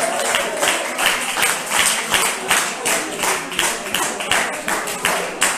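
Hands clapping in a steady rhythm, about three claps a second, keeping time in a pause between sung lines of a song.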